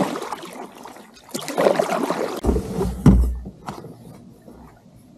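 Water swishing around a kayak and paddle, then a single sharp knock against the kayak with a brief deep rumble about three seconds in, followed by a few faint clicks.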